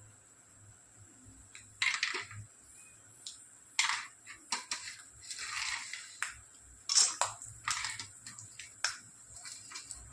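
Peanuts frying in hot oil in an iron kadhai, worked with a metal spatula: irregular scrapes and clinks of the spatula against the pan over a faint steady sizzle.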